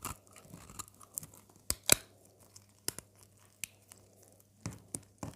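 Knife cutting into a bar of dry soap: irregular crunching snaps and crackles, the loudest two close together about two seconds in.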